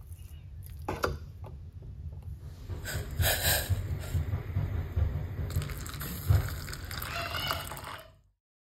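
Hot water poured from a steel pan into a bowl of dried red chillies: a splashing pour lasting about five seconds that cuts off suddenly, over a steady low rumble. A single knock about a second in, before the pour.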